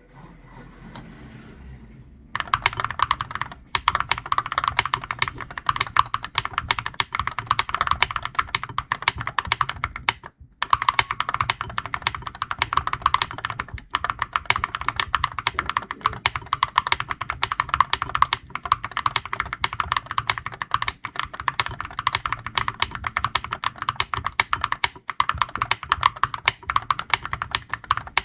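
Fast typing on a Monsgeek M1 V5 HE Hall-effect keyboard: a dense, continuous run of deep, thocky keystrokes. It starts about two seconds in, with a brief pause about ten seconds in.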